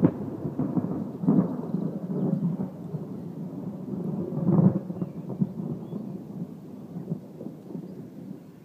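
Thunder rumbling low from a nearby storm, swelling about a second in and again at about four and a half seconds, then dying away.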